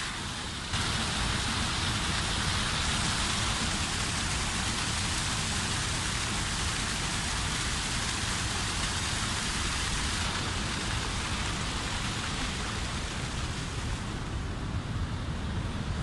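Waterfall: water pouring over rocks in a steady rush, stepping up a little louder under a second in.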